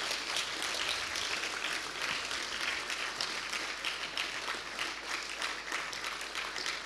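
Audience applauding steadily: many hands clapping at once, the agreed signal that the speaker's five minutes are up.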